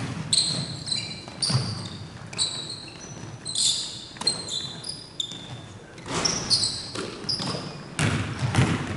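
Basketball pickup play on a hardwood gym floor: the ball being dribbled and bounced, with many short, high sneaker squeaks as players cut and stop, echoing in the large gym.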